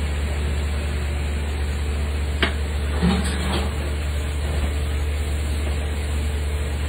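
A steady low machine hum, with a sharp click about two and a half seconds in and a few short knocks just after three seconds.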